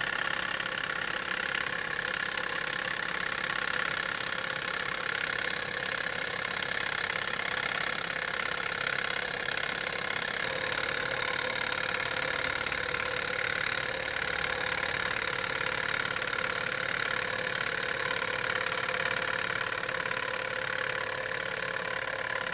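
Sunnytech tabletop Stirling engine model running steadily, its flywheel and piston linkage giving a continuous, even mechanical running sound.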